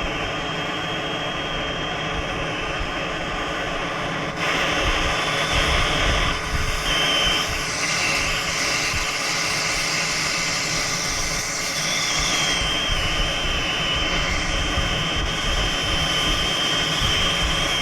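Brazing torch flame running with a steady hiss, which jumps louder about four seconds in, as the torch is worked on the compressor's copper tubing joints. A thin high whistle comes in briefly, then holds through the second half.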